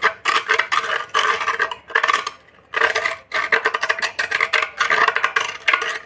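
A hand tool scraping and rasping around the rim of a freshly cut hole in a terracotta pot, smoothing the edge in quick, irregular strokes, with a short pause about two and a half seconds in.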